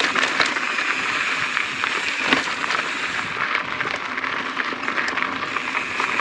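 A 2020 YT Izzo mountain bike rolling over stony singletrack: a steady hiss of tyres on grit with many small clicks and rattles.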